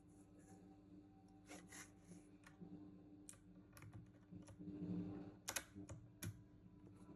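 Keys of a JeDEL WKL-102 mechanical keyboard being pressed: faint, scattered, irregular clicks, a few in quick pairs, over a low steady hum.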